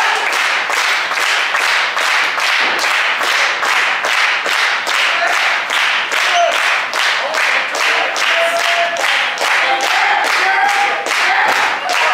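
Wrestling audience clapping in unison, a steady rhythmic beat of about three claps a second. A few short shouts come over it in the second half.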